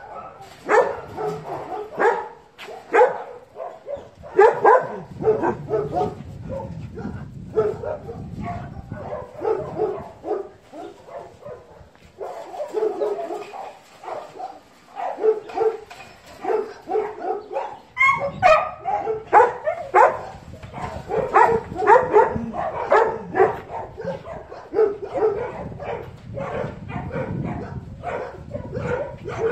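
Several dogs barking in dense, overlapping barks, thinning briefly about twelve seconds in before picking up again.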